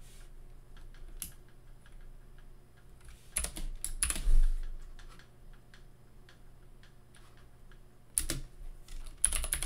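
Typing on a computer keyboard: scattered keystrokes, with louder flurries of clicks about three to four and a half seconds in and again near the end.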